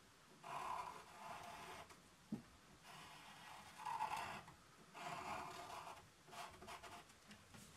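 Pen scratching across paper in four spells of drawing strokes, the last a run of quick short strokes, with a brief light knock between the first two.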